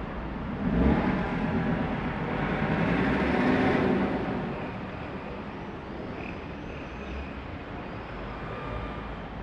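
A car passing on the street, its noise rising for a few seconds and fading back into steady traffic noise.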